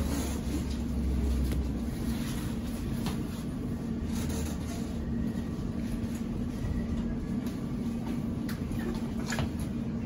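Cabin sound inside a London Overground Class 710 electric train pulling into a station: a steady electrical hum over a low rumble that eases about a second in, with a few faint clicks.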